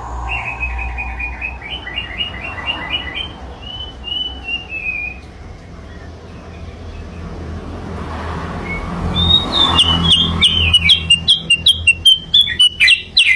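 Sooty-headed bulbul (kutilang) song played as a trapping lure call: a quick run of short chirping notes, then a quieter stretch, then a louder, busier string of sharp chirps near the end.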